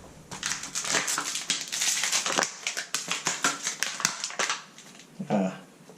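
Rapid clicking and crinkling of a new dimmer switch's packaging being handled and opened, stopping about four and a half seconds in.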